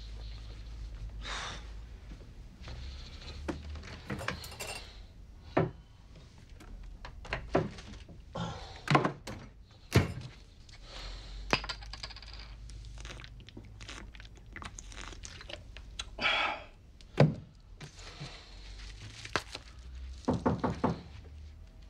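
Scattered knocks, clicks and small thuds of objects being handled and set down on a wooden desk, over a low steady hum. Near the end comes a quick run of small clicks.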